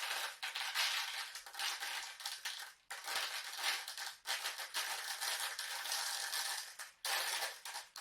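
Rice grains pattering and rattling on a sheet of paper, a foley imitation of rain: a dense, steady crackling hiss that breaks off briefly three times.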